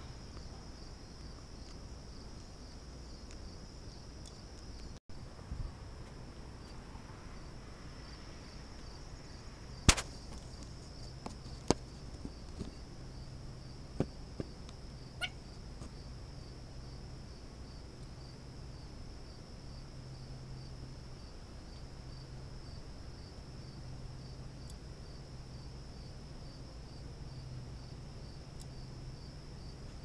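Insects chirring steadily outdoors, a high, evenly pulsing drone. A few sharp clicks and taps stand out near the middle, and a low hum comes and goes in the second half.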